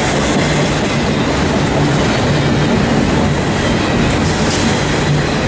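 Railroad cars rolling past at close range: a steady, loud rumble of steel wheels on the rails.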